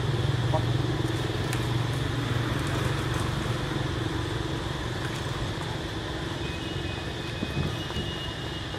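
A motor engine running in the background, a steady low hum that slowly fades. Two faint high thin tones come in near the end.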